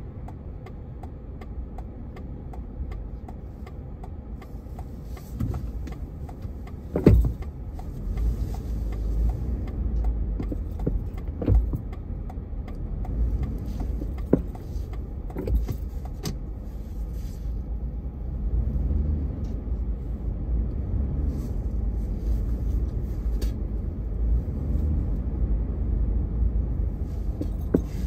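Low rumble of a car's engine and road noise heard from inside the cabin while driving slowly in city traffic, with scattered light clicks and knocks. The loudest knock comes about seven seconds in, and the rumble grows a little louder in the second half.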